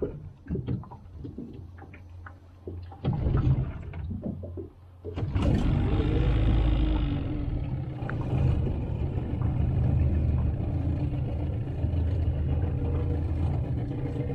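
Small outboard motor on a jon boat being started: a few short clattering bursts, then it catches about five seconds in, revs briefly and settles into a steady run.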